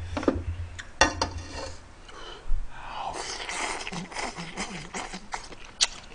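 A person slurping ramyeon noodles off chopsticks: a long, noisy slurp in the middle, with a few sharp clicks of chopsticks against the dishes before and after it.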